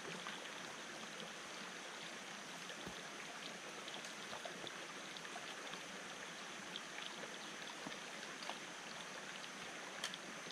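Stream water flowing, a steady rush with faint scattered ticks.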